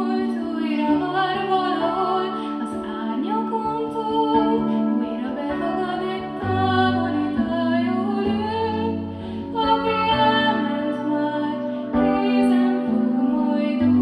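A girl soloist singing a slow, gliding melody over sustained chords held underneath, in a children's choir performance.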